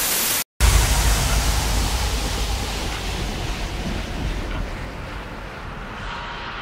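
A brief burst of TV static hiss cuts off, then a wind-like rushing noise with a deep rumble starts and slowly fades over several seconds. Faint steady tones begin to come in near the end.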